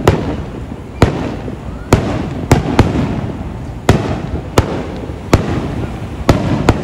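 Aerial fireworks shells bursting overhead at a display: about ten sharp booms come at uneven intervals, sometimes two close together, and each trails off in a rolling echo.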